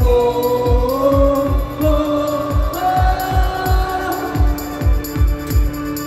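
Live pop music over a concert PA: a heavy kick drum on every beat, a little over two beats a second, under a sung melody with long held notes.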